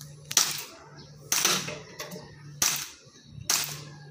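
Airsoft pistol being fired at targets, four sharp cracks at roughly one-second intervals, each with a short fading tail.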